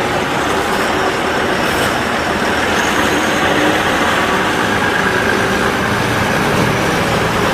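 A heavy vehicle's engine running steadily: a loud, even, noisy rumble with no rise or fall.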